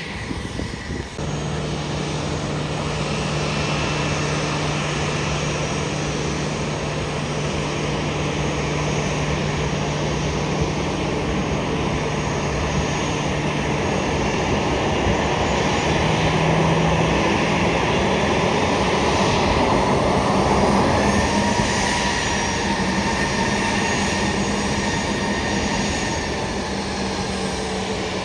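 Jet engines of taxiing aircraft running near idle: a steady rumble and hiss with a constant whine. About twenty seconds in, the sound swells and a higher whine comes in.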